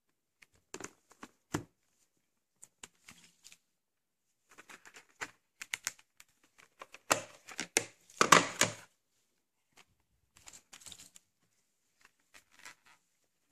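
Handling of VHS tapes and their plastic cases and packaging: scattered clicks, taps and short rustles, busiest and loudest about seven to nine seconds in.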